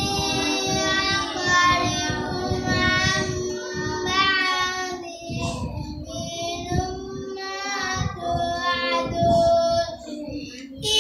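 A high voice chanting Quran recitation (qirat) in long melodic phrases, holding and ornamenting notes, with short breaths between phrases.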